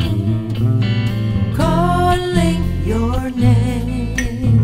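Song with guitar and singing, from a studio reference mix; sung notes that bend and glide come in during the second half.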